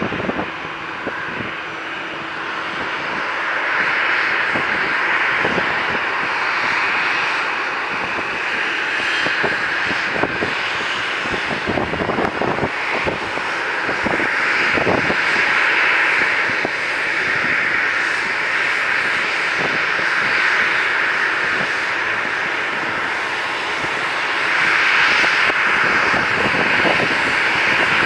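Boeing 737-800's CFM56-7B turbofan engines running at taxi idle: a steady high-pitched whine and rush that grows louder a few seconds in as the jet rolls up, then swells and eases a few times.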